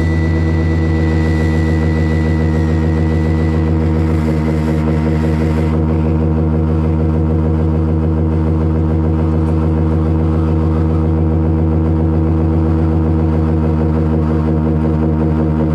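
Live electronic noise music: a loud, steady low drone built of layered pitched hums. A thin high whistling tone fades out about three and a half seconds in, and the hiss above the drone drops away soon after.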